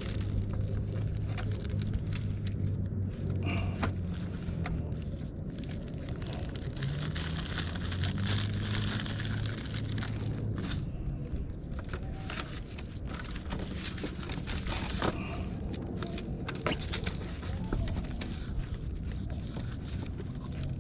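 A steady low motor hum that shifts in pitch about seven seconds in, with scattered light clicks and crinkles from a plastic tray of fish being handled.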